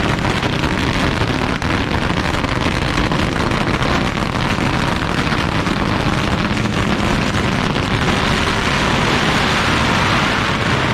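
A pagara, a long string of Chinese firecrackers, going off in a dense, continuous crackle of rapid bangs that blur into a steady roar at an even loudness.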